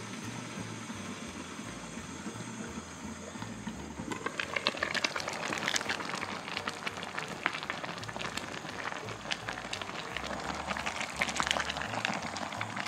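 Nabe hotpot broth simmering and bubbling over a portable gas burner's blue flame, with a steady hiss. The bubbling crackle grows denser about four seconds in.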